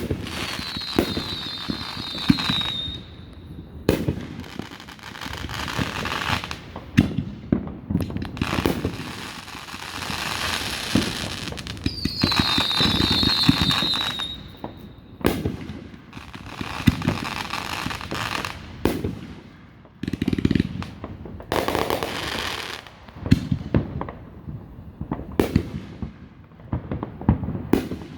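Aerial fireworks display: a steady run of sharp booming bursts with crackling in between. Twice a high whistle sounds and falls slightly in pitch.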